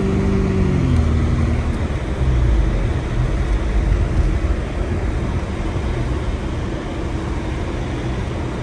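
Car driving through deep snow, heard from inside the cabin: a steady engine hum that drops in pitch about a second in, then a low rumble and hiss of the tyres pushing through the snow.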